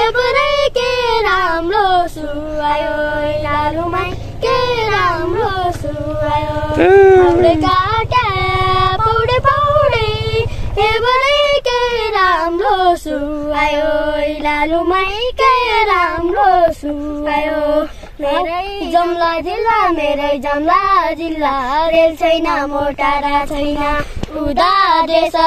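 Two children, a boy and a young girl, singing a song together without accompaniment, one melody line of held and gliding notes sung in unison.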